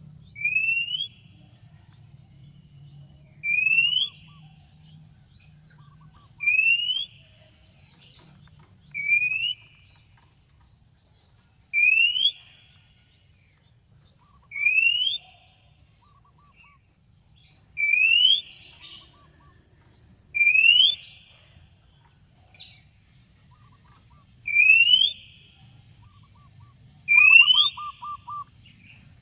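Oriental magpie-robin (kacer) giving a loud rising whistle ten times, about every three seconds, with soft short chirps between and a quick run of five short notes near the end.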